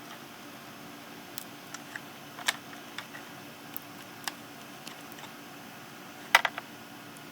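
Irregular small clicks and taps of a laptop SATA hard-drive adapter being pushed and worked into its connector on the second drive board, with a louder cluster of clicks about six seconds in.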